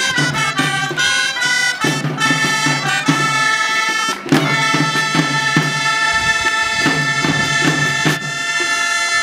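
Traditional reed wind instruments playing a lively dance tune for the giants, with a steady low tone underneath and a drum beating time about twice a second.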